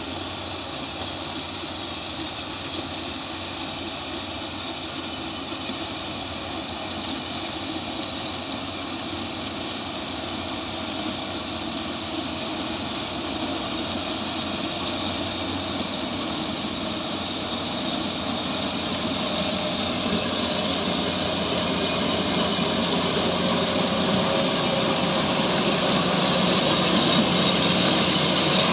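Case IH sugarcane harvester running steadily as it cuts cane and blows it into a ten-wheel truck driving alongside, the truck's engine running with it. The noise grows steadily louder as the machines come closer.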